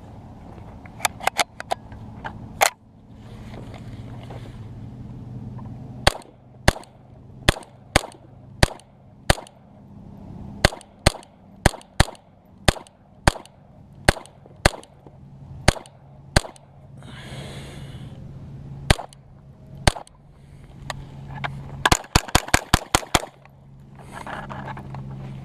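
Gunshots from a semi-automatic firearm: a quick handful of shots, then a steady string of about one shot every half second, then a fast burst of shots near the end.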